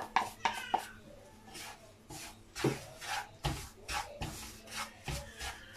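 Wooden spatula stirring dry semolina (rava) around a nonstick frying pan, a series of short scraping strokes as the rava is worked into the oil to roast.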